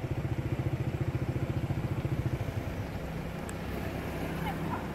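Motorbike engine running with a steady rapid chug that fades out about halfway through, leaving a low rumble of road traffic.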